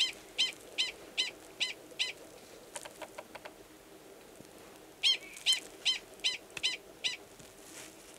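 Male Gunnison's prairie dog giving its mating call: two bouts of about six sharp, high-pitched barks each, roughly two and a half a second, with a pause of about three seconds between. The mating call sounds identical to the species' alarm call.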